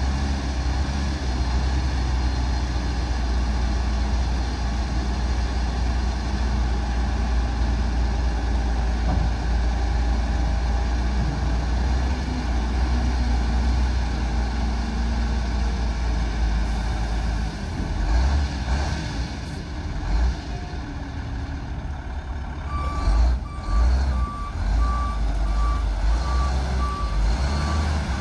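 Cummins ISC 8.3-litre inline-six diesel of a 1998 Ford LT8501 dump truck running with a steady low rumble, with a few brief thumps in the last third. Near the end its back-up alarm starts beeping steadily as the truck is put in reverse.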